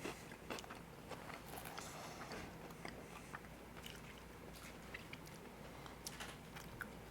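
Faint crunching and chewing of Kit Kat chocolate wafer, with scattered small crackles.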